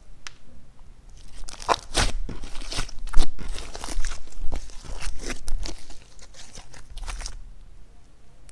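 Thick slime being squeezed, stretched and folded by hand, giving a quick run of sticky clicks and pops. It grows quieter for about the last second.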